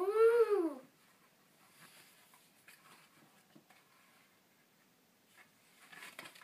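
A toddler's short vocal sound, under a second long, rising then falling in pitch, followed by faint rustles and taps as the cardboard pages and flaps of a board book are turned.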